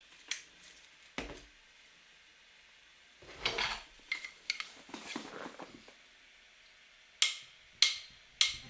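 Irregular clinks and knocks of hard objects being handled, with a clattering stretch from about three to six seconds in and single sharp clicks before and after.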